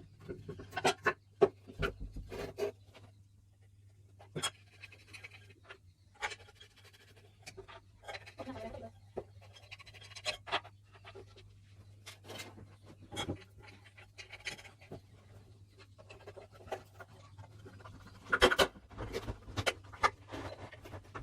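Irregular clicks, taps and scraping as ceiling fan parts are handled and worked on by hand, over a low steady hum. The clicks bunch together about eighteen seconds in.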